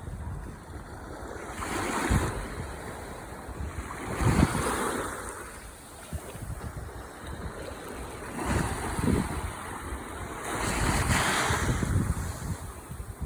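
Ocean waves washing onto the shore, swelling and fading four times, every two to five seconds, over a steady low rumble of wind on the microphone.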